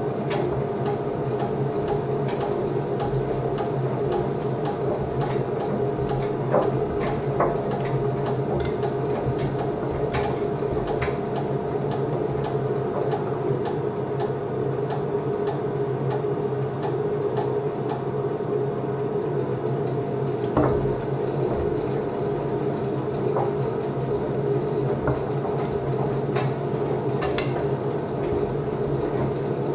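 Beko WDC7523002W washer-dryer running its drying cycle: a steady hum from the drum motor and drying fan, with scattered light clicks and knocks as the laundry tumbles in the drum. There is a louder thump about two-thirds of the way through.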